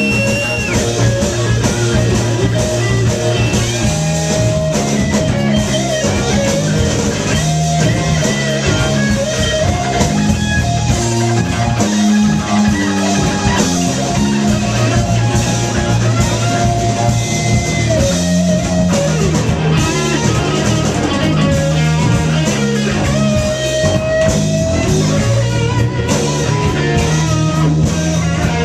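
Live blues band jamming: an electric guitar plays held, bent lead notes over a bass line and a drum kit.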